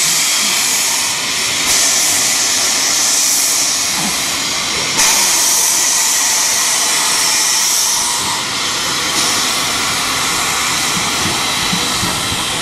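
Steam locomotive venting steam, a loud hiss that surges and eases several times.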